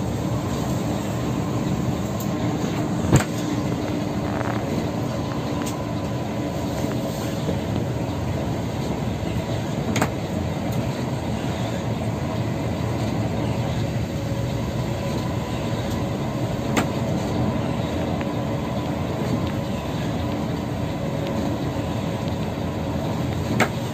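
Steady road and engine noise inside a moving coach bus's cabin, with a low hum. Four sharp knocks are spaced several seconds apart.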